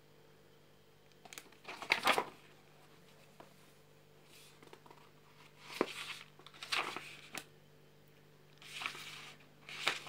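Pages of a hardcover journal being flipped by hand, paper rustling and flapping in several short bursts. A faint steady hum from a freezer runs underneath.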